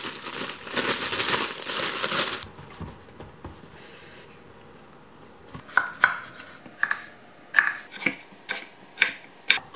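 A plastic produce bag crinkling loudly as eggplants are pulled out of it, then a faint rub of a paper towel. From about six seconds in, a kitchen knife slices eggplants lengthwise, knocking on a wooden cutting board about eight times.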